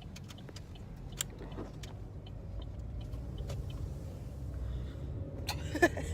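Steady low rumble of a car heard from inside the cabin, with a few small clicks and knocks, one about a second in and several near the end.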